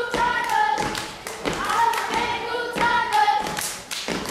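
Children's step team stomping and clapping in rhythm, with a group of young voices calling out together over the beats.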